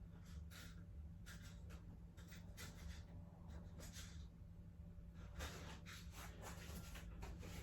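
Faint, scattered scratchy rustles and light clicks of small hardware being handled and sorted, over a steady low hum.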